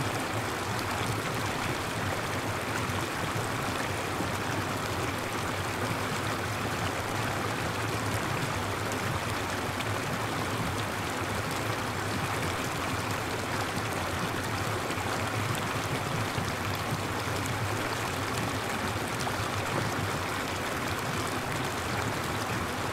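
Artificial rain falling steadily from overhead spray pipes onto the people and floor of a rain-bath enclosure: an even, unbroken rush of falling water.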